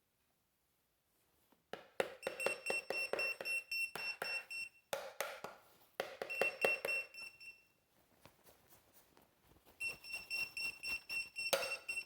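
High-pitched electronic alarm beeping in rapid pulses, about eight a second, in three spells that stop and start again.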